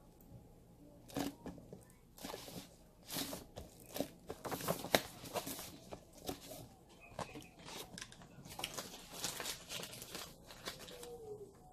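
Gift-bag paper rustling and crinkling in short, irregular bursts as it is handled and pressed around a cardboard box.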